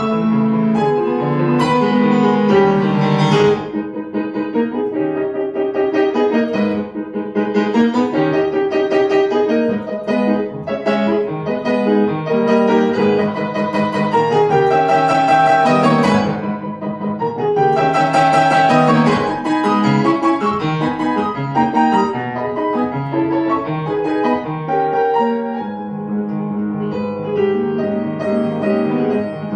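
Grand piano played fast and loud in classical style: rapid runs and full chords in a continuous stream of notes, with steadier repeated notes in the bass near the end.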